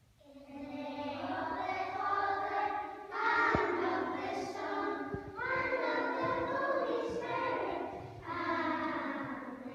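A class of young primary-school children singing together as a choir, in four phrases with short breaks between them.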